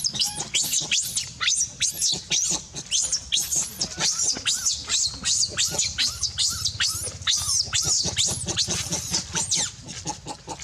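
A monkey giving rapid, high-pitched squealing calls, about three a second, each call rising and falling in pitch. The calls grow fainter near the end.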